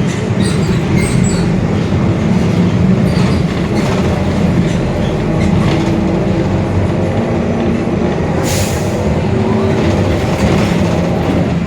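Mercedes-Benz OF-1721 Bluetec 5 bus running under way, a steady rumble with a droning whine from the differential, which growls ("roncando"). A brief hiss of air about two-thirds of the way through.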